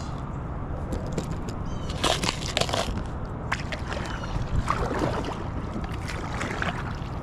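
Water splashing and sloshing against an inflatable kayak in irregular strokes, over a steady low wind rumble on the microphone.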